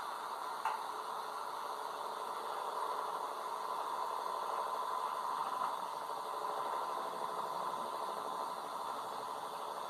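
Steady engine hum of a Great Lakes freighter running as it passes through the canal, with one short click about a second in.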